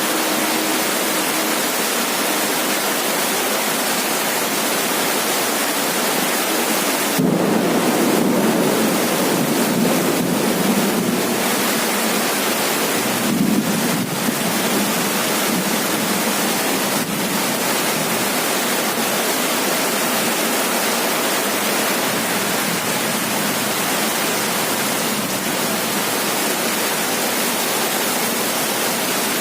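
Heavy rain drumming steadily on a roof, a dense even hiss. A low rumble of thunder swells about seven seconds in and again briefly around thirteen seconds.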